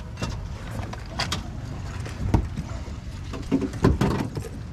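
Low steady rumble aboard a speedboat, broken by a handful of sharp knocks and thumps, the loudest about two and a half and four seconds in.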